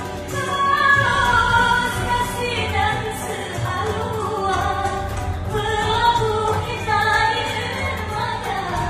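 A woman singing a dangdut song into a karaoke microphone over its backing track, her voice in long bending melodic lines above a steady bass.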